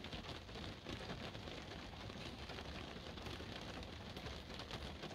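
Rain falling on a car, heard from inside the cabin: a faint, steady patter of drops on the roof and windows.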